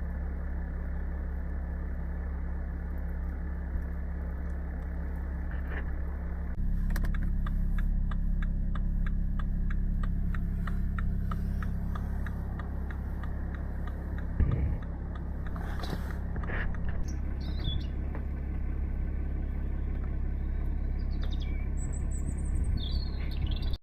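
Car engine idling with a steady low hum that steps up slightly about six and a half seconds in. A fast, regular ticking runs for several seconds in the middle, there is a single thump around fourteen seconds, and a few high chirps come near the end.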